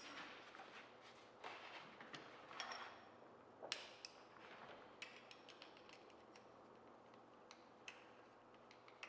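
Faint, scattered clicks and ticks of small metal tools and pedal parts being handled: the hex key and 8mm socket turning the flanged bearing nut onto the pedal axle as it is tightened.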